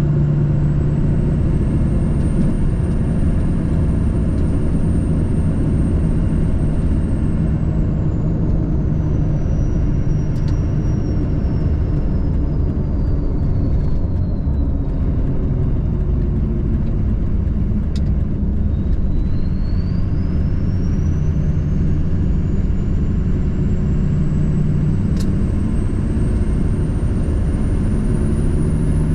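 Steady engine and road noise of a truck at cruising speed, with a constant low hum. A faint high whine slowly falls and rises in pitch over it.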